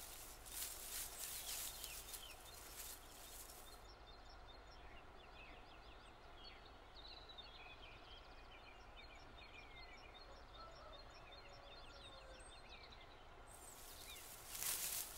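Faint field ambience: small birds singing in quick, chirping phrases. A crackly rustling noise is heard for the first few seconds and again near the end.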